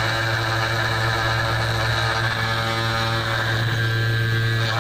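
775 spindle motor of a CNC 2417 engraver running at a steady hum, about 6000 rpm, while a small carbide ballnose end mill engraves anodized aluminium.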